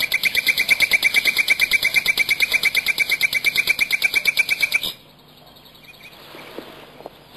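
A rapid, even bird trill of about ten notes a second, high-pitched, cutting off abruptly about five seconds in; after it, only faint scattered chirps over a low hiss.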